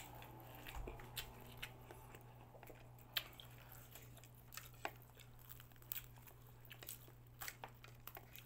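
Crispy deep-fried chicken being eaten by hand: quiet chewing, with scattered small crackles of the crisp breading as it is picked apart. A low steady hum runs underneath.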